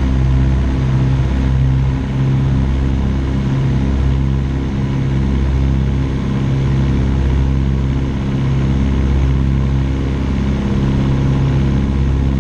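The DH90 Dragonfly's twin de Havilland Gipsy Major engines at takeoff power, heard inside the cockpit: a loud, steady drone with a slow pulsing throb.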